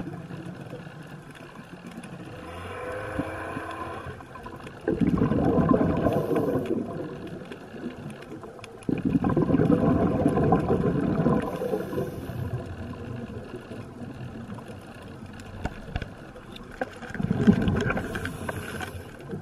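Scuba diver breathing through a regulator underwater: exhaled bubbles rush past the camera in three long surges of a few seconds each, with quieter stretches between.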